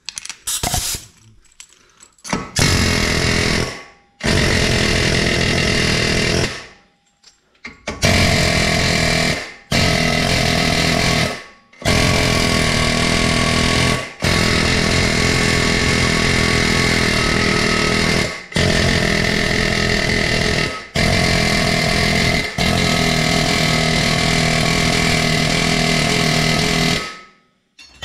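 Pneumatic air hammer with a hammerhead bit pounding on a rusted rear wheel hub. It fires in about ten bursts of one to four seconds, with short breaks between them.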